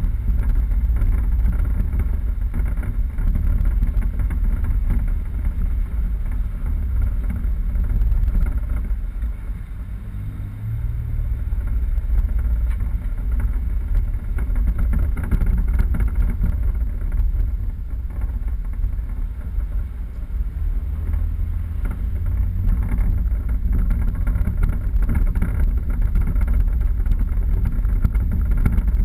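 Steady low rumble of a 4x4 vehicle driving off-road, easing briefly about ten seconds in.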